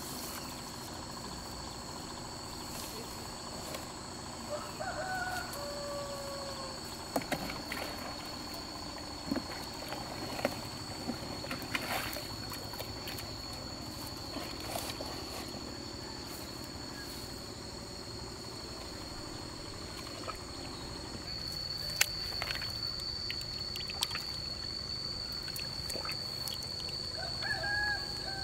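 Pond-side ambience: insects droning at one steady high pitch throughout, a bird calling briefly twice, about five seconds in and near the end, and scattered knocks and rustles from a net and plastic basin being handled.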